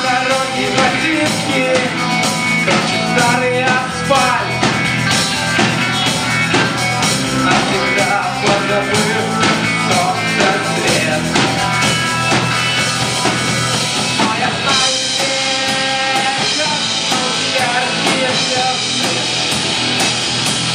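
Live rock band playing loudly, with electric guitars and a drum kit, picked up from among the audience. About fifteen seconds in, the sound gets fuller and brighter.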